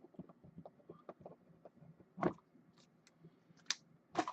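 Scattered light clicks and taps of small hard objects being handled, with a louder brushing noise about two seconds in and a few sharper ones near the end.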